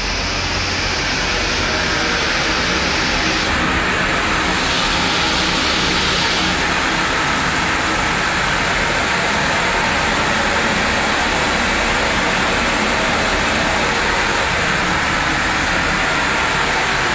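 Steady, loud machinery noise running without a break.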